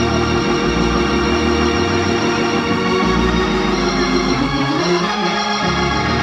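Organ playing a gospel praise break: sustained chords held over a low bass line that moves to a new note every second or so.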